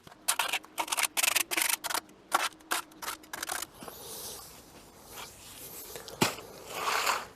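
A hand tool scraping and spreading wet concrete in a quick series of about a dozen short, scratchy strokes, followed by a softer, longer scrape and a single sharp click.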